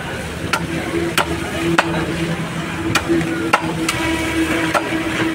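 Wooden mallet knocking a chunk of catfish onto a fixed boti blade to drive the blade through it: about seven sharp, separate knocks at an uneven pace. A steady low hum runs underneath.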